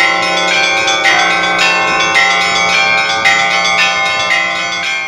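A cathedral's set of bells ringing a peal. Smaller bells are struck about twice a second over the steady hum of a large bell, and the ringing begins to fade near the end.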